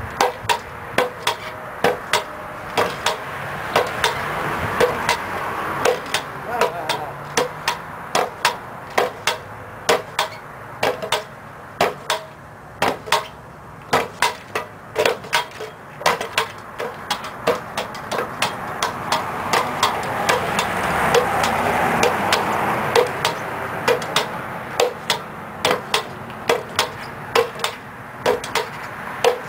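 Pogo stick bouncing steadily on pavement: a sharp clank with a brief ring at each landing, about twice a second. Beneath it a background rush swells and fades.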